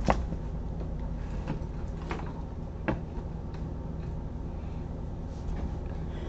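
Steady low room hum with a few faint, light clicks scattered through it.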